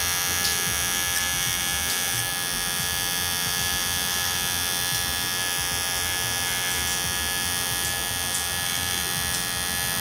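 Wahl Bravura hair clipper running steadily with a freshly sharpened Wahl 5-in-1 blade, its motor buzz steady while test string is fed into the blade, with a few faint ticks. This is the test cut after sharpening, and the blade cuts the string.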